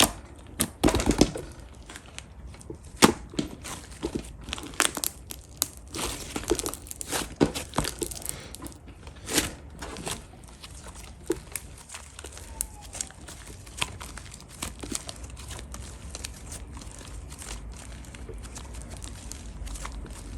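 Slime being squeezed, stretched and poked by hand: sticky clicks and pops, many close together in the first half and sparser later.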